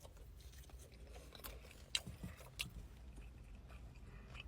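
A person chewing a mouthful of sauced barbecue rib tips: faint wet mouth sounds with a few soft clicks, the clearest about two seconds in, over a low steady hum.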